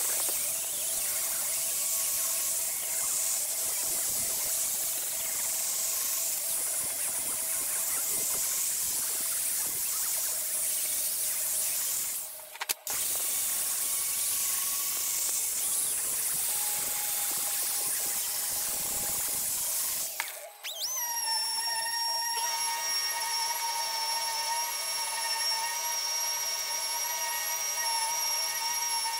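Electric angle grinder with an abrasive disc working across a sheet-metal blank, a steady high grinding noise. It stops briefly twice; after the second stop, about two-thirds in, a grinder with a small abrasive pad spins up to a steady high-pitched whine as it works the metal.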